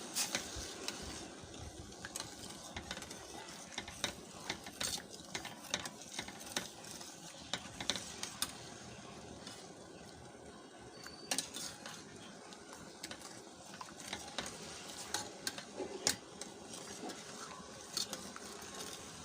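A spoon stirring sugar syrup in a cooking pot, scraping and knocking irregularly against the pot, over a steady hiss.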